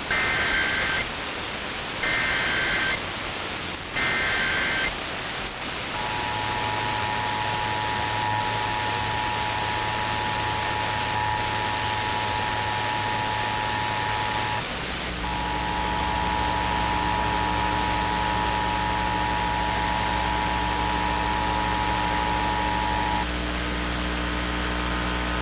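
Emergency Alert System test off the air: three one-second bursts of buzzing data tones (the SAME header) about a second apart, then the two-tone attention signal held for about nine seconds. After a cut, another station's attention signal sounds for about eight seconds over a steady electrical hum, all with static hiss beneath.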